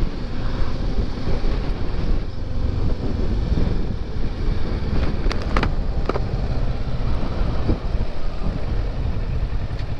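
Motorcycle engine running at low road speed, with wind buffeting the microphone.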